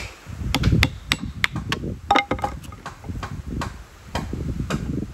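A dozen or so sharp, irregular knocks of wood and metal with dull thuds under them: an old axe head being knocked onto a wooden handle to seat it.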